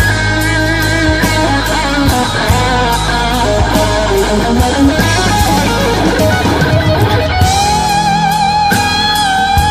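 Blues-rock band playing a ballad: an electric guitar takes the lead with long held, bent notes and wide vibrato, over bass, keys and a steady drum beat.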